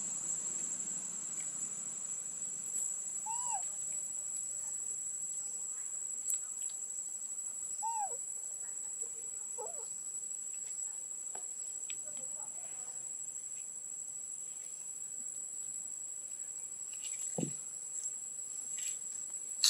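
Steady high-pitched drone of insects, with three short rise-and-fall animal calls about four, eight and ten seconds in.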